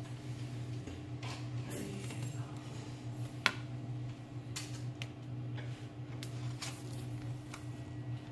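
A spiral-bound hardcover book being handled on a table: the cover opened and plates turned, giving scattered clicks and taps, the sharpest about three and a half seconds in, over a steady low hum.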